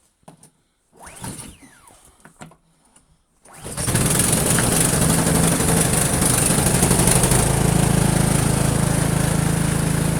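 Poulan Pro 21-inch snowblower engine cold-started after being primed twice. A few faint handling clicks come first, then the engine catches about three and a half seconds in and keeps running steadily, settling into a fuller, lower running note about halfway through.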